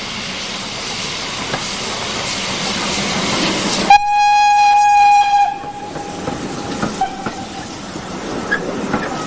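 Steam locomotive running with a steady hiss, then its whistle blows one long note about four seconds in, held for about a second and a half before trailing off. After that the wheels click over the rail joints.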